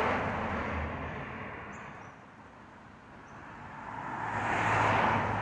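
Cars passing on a nearby road: tyre and engine noise from one car fading away over the first two seconds, then a second car approaching and passing about five seconds in.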